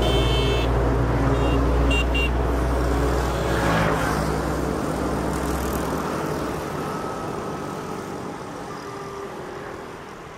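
A motor vehicle engine rumbling close by, then fading away after about six seconds, with a few short high beeps in the first two seconds.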